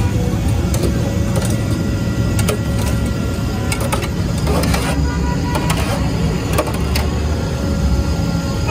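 Steady rumble of road traffic, with a few sharp clinks of a steel ladle against steel pots and bowls.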